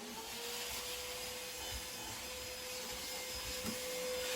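A small electric motor appliance spinning up and running at a steady speed: its hum rises in pitch as it starts and then holds level, under a strong airy hiss.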